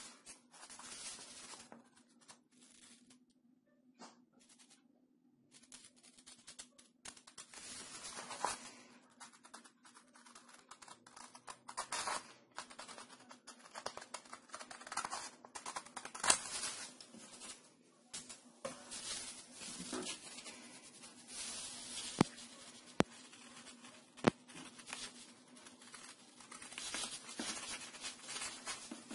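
Scissors cutting through a sheet of printer paper, with irregular snips and paper rustling as the sheet is handled and turned. A few sharp clicks stand out in the second half. A faint steady low hum runs underneath.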